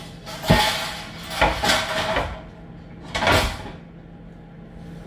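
A tray being fetched from the kitchen cupboards: a sharp knock about half a second in, a cluster of knocks and rattles around one and a half to two seconds, and one more about three seconds in.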